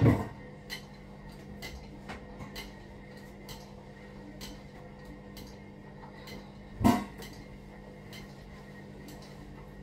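Kitchen clatter: small clicks and clinks of dishes and utensils being handled and set down, with two louder knocks, one at the start and one about seven seconds in, over a steady low hum.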